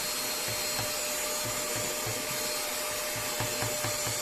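Handheld mini vacuum cleaner running steadily with a constant whine, sucking up spilled cake crumbs.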